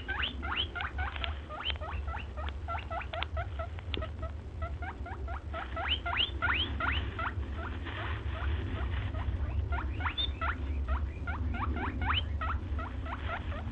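Small caged birds chirping together in many short rising chirps, several a second, over a steady low hum.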